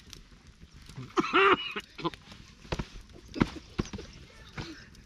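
A short pitched cry about a second in, rising then falling in pitch, among several scattered light clicks and knocks.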